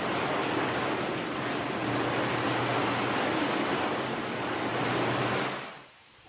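Water running steadily into a bathtub, a loud even rush that fades away near the end.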